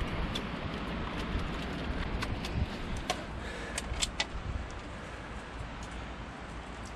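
Light metallic clicks and clinks of manifold nuts being handled and started onto their studs, scattered and irregular, most of them a couple of seconds in, over a steady low rumble.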